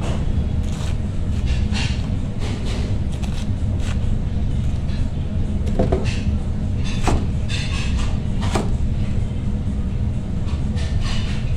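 Large kitchen knife cutting through a head of cabbage and knocking on the cutting board: irregular single chops a second or more apart. A steady low rumble runs underneath.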